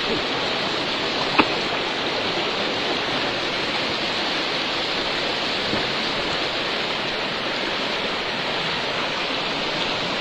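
Floodwater rushing steadily, with a single brief click about a second and a half in.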